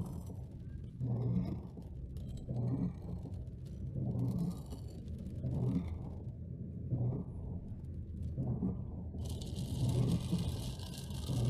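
A car driving in heavy rain, heard from inside the cabin: a steady low engine and road rumble, with windscreen wipers swishing about every second and a half. About nine seconds in, a loud hiss of rain or tyre spray comes in.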